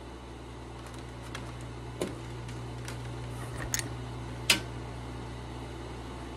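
Steady low hum of a running desktop computer, with a few sharp clicks and taps from a cable plug being handled, the loudest about four and a half seconds in.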